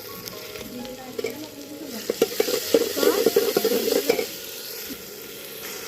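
Onions and ginger-garlic paste sizzling in hot oil in a pan, stirred with a spoon that scrapes and clatters against the pan for a couple of seconds in the middle.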